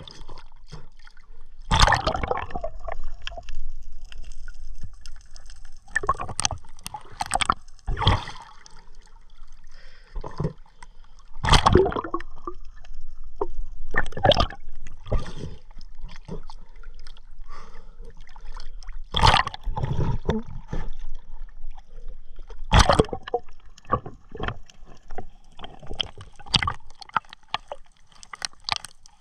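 Water splashing and sloshing close by, in irregular bursts a second or a few seconds apart, some much louder than others.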